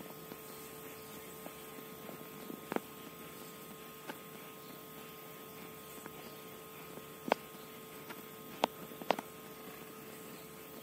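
A steady hum with about half a dozen sharp clicks scattered through it, the loudest in the second half: an egg heating in a dry iron pan over a gas flame, the egg and hot metal ticking as they heat.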